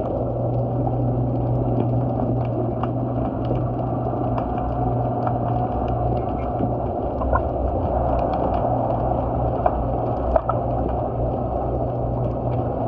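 Sound from below a wharf: a steady low drone under a band of hiss, with scattered sharp clicks throughout and two louder clicks near the end.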